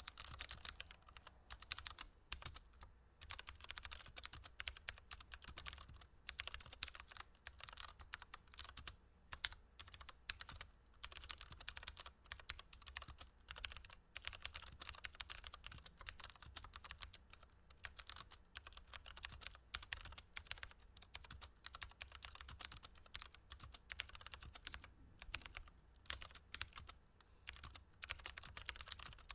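Mechanical keyboard being typed on at a fast, continuous pace, a dense run of key clicks broken by short pauses every few seconds. The mix is treble-heavy and bright.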